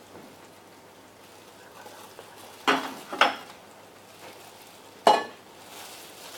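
Kitchenware knocking while batter is mixed in a ceramic bowl: two sharp clinks about half a second apart, then about two seconds later a louder clank with a short metallic ring from the stainless steel bowl.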